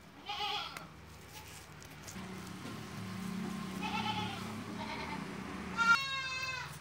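Goats bleating repeatedly at feeding time, several separate calls with the longest and loudest one near the end, over a low steady drone.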